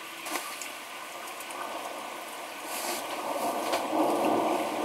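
Thunderstorm noise: a steady hiss of heavy rain that swells into a louder rushing about halfway through.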